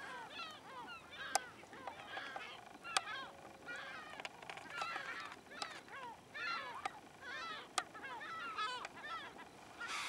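A flock of birds calling continuously, with many short calls overlapping one another, and three sharp clicks.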